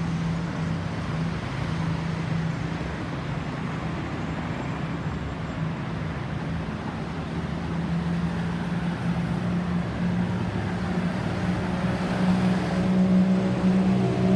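Road traffic: a motor vehicle's engine running with a steady low hum over tyre and road noise, growing louder near the end as the engine note strengthens.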